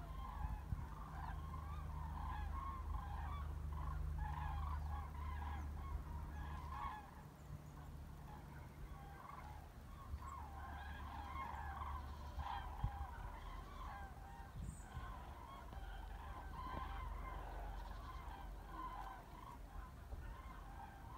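A migrating flock of common cranes calling overhead in flight: many overlapping trumpeting calls without a break. A low steady hum runs underneath and drops away about seven seconds in.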